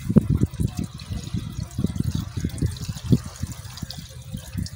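Water pouring from a plastic jerrycan into a tractor's radiator, glugging in quick, uneven gulps.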